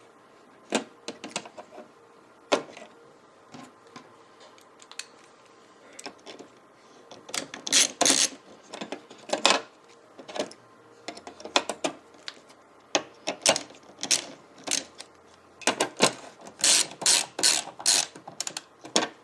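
Irregular clicks, taps and small clatters of computer hardware being handled on a motherboard while M.2 drives are being fitted, sparse at first and coming in quick clusters about a third of the way in and again near the end.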